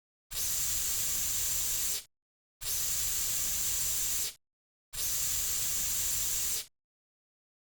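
Narrow-nozzle cockroach insecticide aerosol can spraying in three even bursts of about two seconds each, a steady hiss that starts and stops cleanly.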